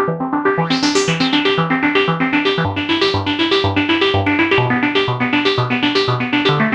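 Roland J-6 chord synthesizer playing a factory preset: a fast, even arpeggiated pattern of notes over a pulsing bass line. The sound turns brighter about a second in.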